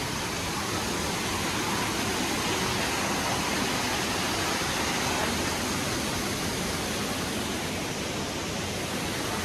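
Waterfall splashing into a pool: a steady, even rush of water.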